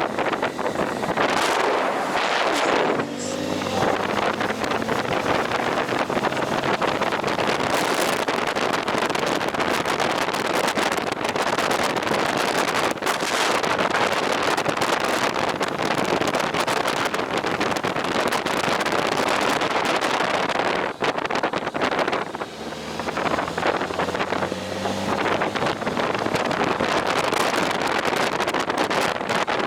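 Wind rushing over the microphone of a moving motorcycle, with the engine heard faintly beneath it. The engine's pitch shifts briefly twice, a few seconds in and again near the end.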